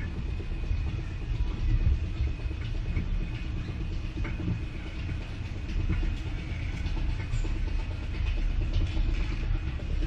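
Roller coaster train running along its steel track: a steady low rumble with light clatter and a faint steady high whine.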